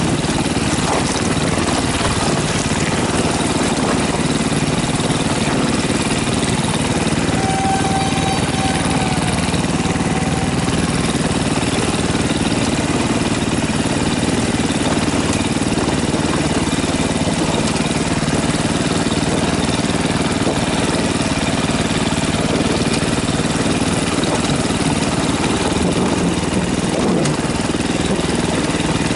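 KTM off-road motorcycle engine running steadily at a low, even pace as the bike rides along a rocky trail.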